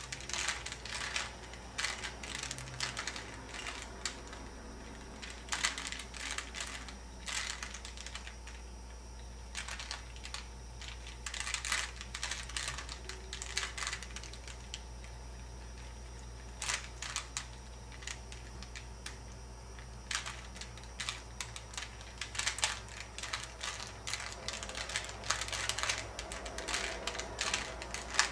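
A plastic Rubik's Cube being turned by hand: layers clicking and rattling in quick runs of turns, broken by short pauses, as the middle-layer edge pieces are moved into place.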